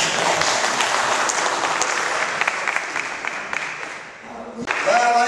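Audience applause, a dense patter of many hands clapping that dies away about four seconds in; a voice starts just before the end.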